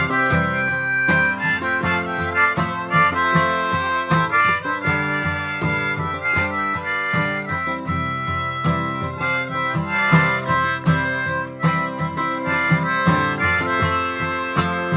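Harmonica playing a melody of held notes over steadily strummed acoustic guitar: an instrumental break in a folk song.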